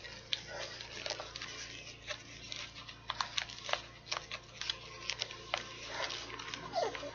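Packaging being handled and pulled open to get a mochi out, giving irregular crinkling clicks, with a brief squeak near the end.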